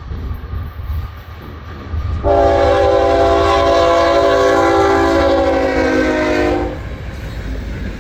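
Diesel freight locomotive's air horn sounding one long chord of several notes for about four and a half seconds as the train nears the crossing, over the low rumble of the train.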